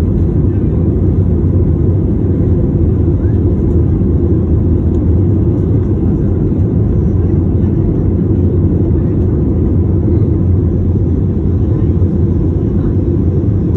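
Airbus A320 cabin noise in the climb just after takeoff: the jet engines and airflow make a loud, steady low rumble, heard from inside the cabin.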